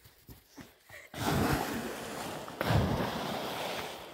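Wind buffeting the microphone as the camera is carried at a run through grass. It is a loud rushing noise that starts suddenly about a second in and surges again about halfway through.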